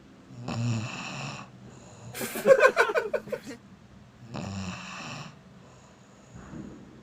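A sleeping person snoring, with snores about four seconds apart. Between the first two snores comes a louder one made of rapid fluttering pulses.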